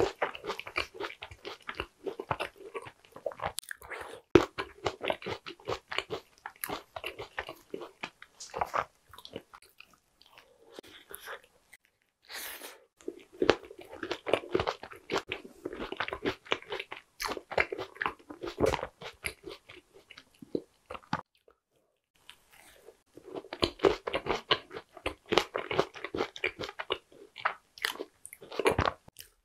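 A person chewing a Shine Muscat grape tart, the pastry crust crunching with quick, repeated bites. The chewing comes in three spells with short pauses about a third and two-thirds of the way through.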